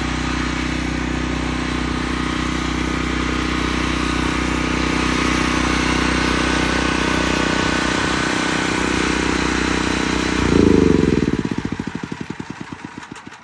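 An engine running steadily, then shut off about ten and a half seconds in, its beats slowing and fading as it runs down to a stop.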